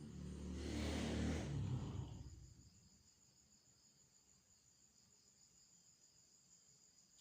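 A motor vehicle passing by, its engine hum and rush swelling to a peak about a second in and fading away by about two and a half seconds. Then a faint, steady high chirring of crickets carries on.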